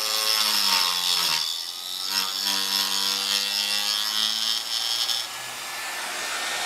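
Hand-held electric router, slowed by a speed controller, milling the cast-iron table with a carbide woodworking bit. Its motor note sags under load in the first second and a half, with a hissing cutting noise over it. The cutting stops about five seconds in and the motor whine falls slowly after.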